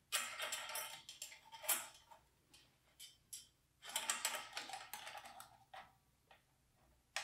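Metal shaft guard of a C+100 centrifugal pump being slid over the shaft and onto the pump housing: two spells of light metal scraping and clicking, a few single clicks between them, and one sharp click near the end.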